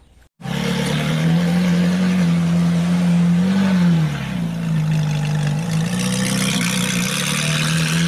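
Ferrari V8 sports car engine running steadily at a raised idle, with a short rise and fall in revs about three and a half seconds in.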